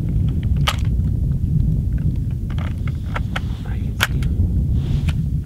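Wind buffeting the microphone in a heavy, uneven low rumble, with scattered sharp clicks and ticks; the sharpest come about a second in and again near four seconds.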